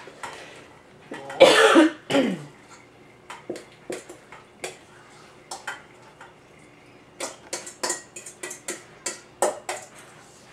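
A person coughs about a second and a half in, the loudest sound. A spoon then knocks and scrapes against a bowl again and again while scooping dip, the knocks coming thickest near the end.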